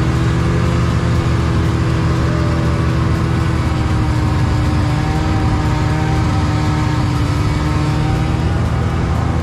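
Snowmobile engine running steadily at cruising speed, a continuous low rumble with a fast, even pulse and a slowly drifting hum.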